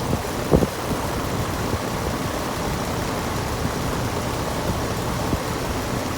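Gibson air conditioner running steadily, a constant hum with rushing air from its fan. A single brief knock about half a second in.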